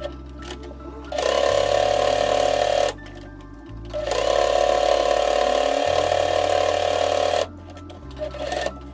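Electric sewing machine running a straight stitch in two runs, a short one about a second in and a longer one of about three and a half seconds from about four seconds in. Background music plays underneath.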